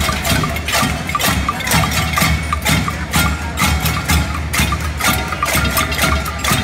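Many people banging on metal saucepans and pot lids, a pot-banging protest (cacerolada): a dense, unbroken clatter of metal strikes, many each second, with ringing metallic tones.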